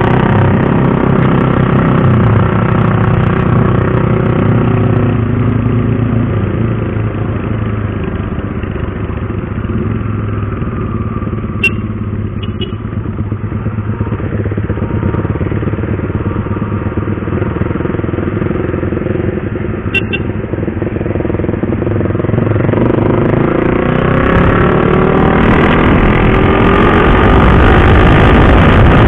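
Single-cylinder sport motorcycle running at speed, heard from on board. Its engine note eases off and drops midway, then climbs steadily in pitch and loudness as it accelerates near the end, with two sharp clicks along the way.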